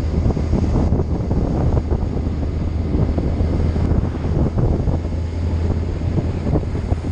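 Wind buffeting the microphone in irregular gusts over a steady low engine drone from a vehicle under way.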